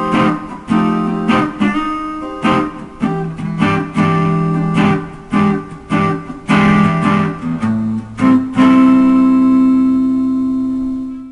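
Intro music on guitar: a run of strummed chords, ending on one long held chord that fades out near the end.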